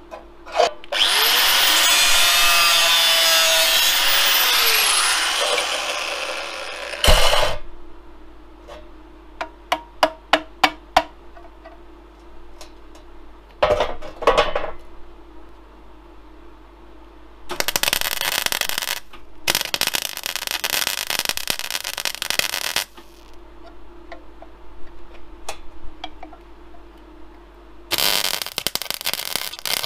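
An angle grinder runs for about five seconds, winding up and then down, followed by a thump and a few sharp hammer taps on metal. Then a MIG welder crackles on the steel axle casing of a Land Rover Series 3 in three bursts of a few seconds each.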